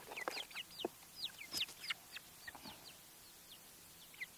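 Young chickens peeping: quick high chirps that drop in pitch, several a second, with a few light knocks in the first two seconds.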